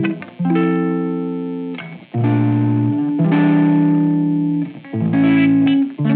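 Background music: held guitar chords, changing every second or so.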